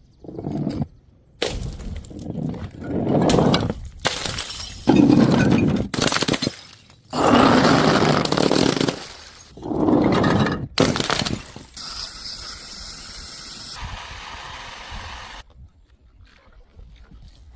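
A quick run of glass bottles smashing and shattering, one short burst after another with abrupt cuts between them, followed by a few seconds of steadier crunching noise.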